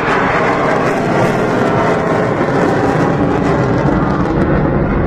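Military jet flying past overhead, its engine noise a loud, steady roar.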